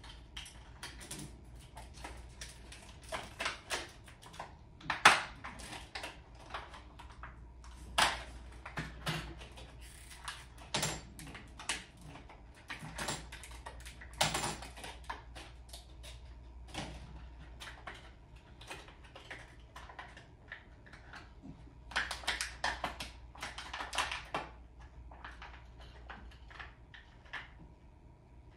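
Irregular clicks, taps and light rattles of objects being handled by hand, with a sharper knock about five seconds in and a quick run of clicks near the end.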